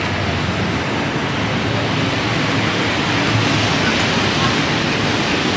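Steady rushing noise of a busy city street, an even roar without distinct events.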